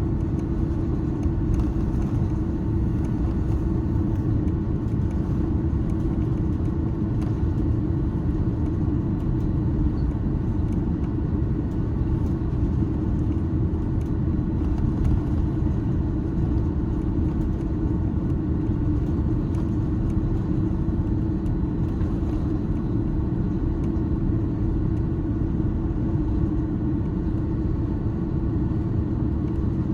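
Steady cabin noise inside an Airbus A330-300 airliner: an even, unbroken rumble of engines and airflow with a constant low hum, typical of the aircraft in flight.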